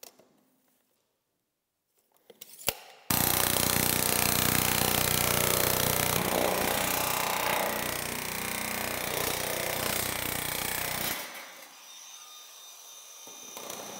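Cordless drill punching screw holes through stacked galvanized corrugated steel panels along a marked screw row: it starts about three seconds in, runs loud for about eight seconds, eases off, then picks up again near the end.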